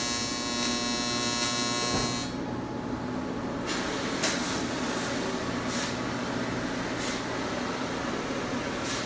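Welding arc on cast aluminum buzzing steadily, then cutting off about two seconds in. After that a steady machine hum remains, with a few brief hissing bursts.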